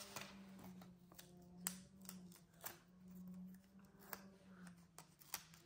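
Faint handling of paper and sticker sheets: a few soft, scattered clicks and rustles over a low steady hum.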